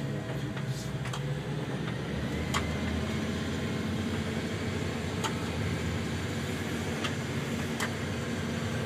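A boat's engine running steadily under way, heard from inside the wheelhouse, with a few short sharp knocks in the choppy sea.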